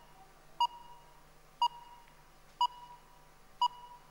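Quiz countdown timer beeping once a second: four short, identical electronic beeps as the answer clock runs out its last seconds.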